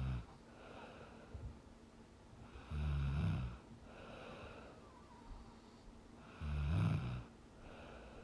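A sleeping woman snoring: three low, rattling snores about three and a half seconds apart, the first just at the start, with softer breathing between them.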